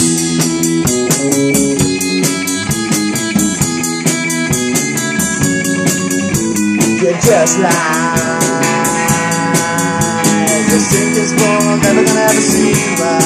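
A rock band playing live: drum kit keeping a steady beat on the cymbals, with an electric guitar through a small Peavey combo amp. About halfway through, a sustained guitar line with bent notes comes in.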